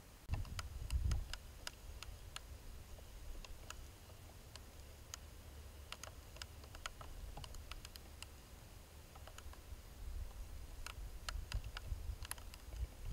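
Scattered, irregular sharp clicks and crackles over a faint hiss, with a low rumble about a second in and again during the last few seconds.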